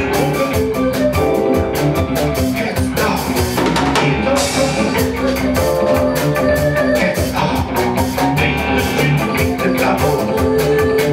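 Live band playing an amplified song with drum kit, keyboards and electric guitar, and a woman singing into a microphone; the drums keep a steady, fast beat.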